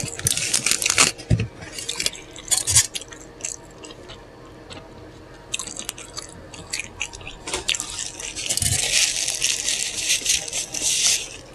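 Close-miked eating: a person biting and chewing a loaded bacon cheeseburger, with wet smacking mouth sounds and crunches. A denser stretch of crackly noise comes near the end.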